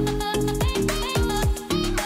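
Upbeat instrumental background music with a steady beat and repeated falling bass notes.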